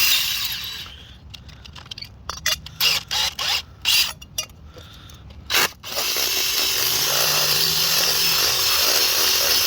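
Electric drill enlarging a hole in a steel exhaust fitting: running briefly at first, then a series of short trigger bursts, then running steadily for about four seconds near the end.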